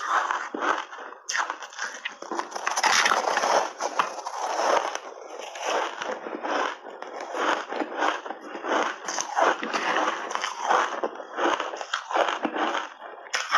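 Close-miked crunching and chewing of frozen ice chunks coated in milk powder: a dense, irregular run of crunches as the ice is bitten and ground between the teeth.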